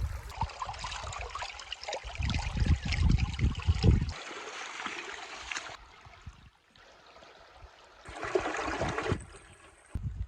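Rain-fed stream flowing over rocks, with gusts of wind buffeting the microphone in the first four seconds. The sound drops off abruptly twice, at cuts between shots.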